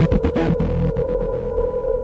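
Electronic pop music: a steady buzzing synth drone over deep bass, with sharp percussive hits in the first half second.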